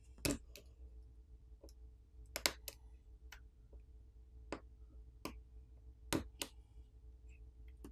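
Flex cable connectors on a smartphone's main board being popped off one after another with a plastic pry pick: a series of sharp, unevenly spaced clicks.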